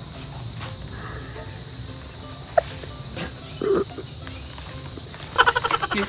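Steady high-pitched drone of an insect chorus, with a person laughing briefly near the end.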